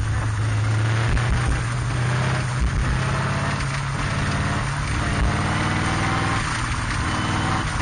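Cheetah race car's engine running under load, heard from the cockpit. It holds a steady drone for a few seconds, then its pitch climbs gradually as the car accelerates, over a steady hiss.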